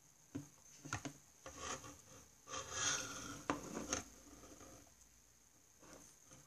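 Faint desk-handling sounds while studying: a few light clicks, then about two and a half seconds of scratching and rubbing on paper, with a couple of sharper taps near its end.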